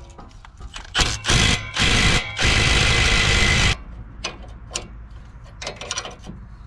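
Aerosol can of penetrating oil sprayed in four short hissing bursts, the last and longest about a second and a half long, onto seized suspension bolts. A few light metallic clicks of wrenches going onto the bolts follow.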